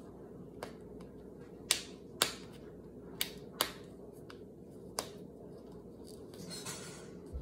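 Sharp plastic clicks and snaps, about six spread unevenly over several seconds, as a small ball-shaped plastic toy capsule is twisted and pried at while being hard to open. A steady low hum runs underneath.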